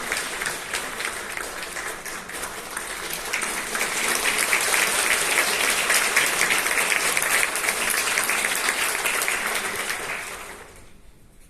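Audience applauding, growing louder about four seconds in, then dying away near the end.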